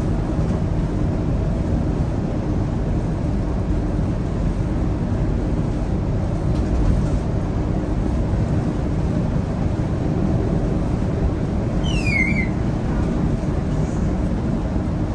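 Scania K230UB bus's diesel engine running steadily at cruising speed, with tyre and road noise, heard from inside the cabin. A short high chirp falls in pitch about twelve seconds in.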